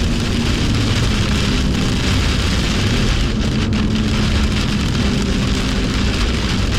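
BMW M2's turbocharged straight-six running at speed under a loud, even hiss of heavy rain and tyre spray on the wet track.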